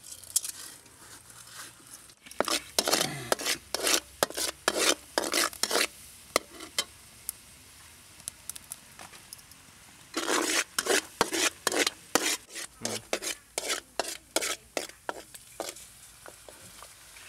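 Metal spatula scraping and stirring in a steel wok in two runs of quick, irregular strokes, over the faint sizzle of fish frying in oil.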